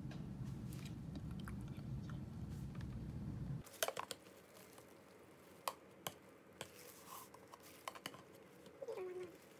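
A steady low hum for the first few seconds, then a metal utensil clicking and scraping against a kimchi jar as kimchi is pulled out, with scattered sharp clicks, small wet squishing sounds and a couple of brief squeaks near the end.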